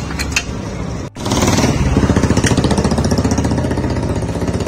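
A few sharp metal clicks of a hand wrench working on the exhaust mounting, then after an abrupt cut about a second in, a loud engine running at a steady idle with an even, rapid pulsing beat.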